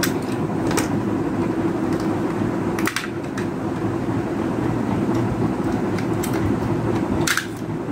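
Steady low mechanical hum in the room, with a few sharp plastic clicks as a small battery compartment cover is worked with a screwdriver.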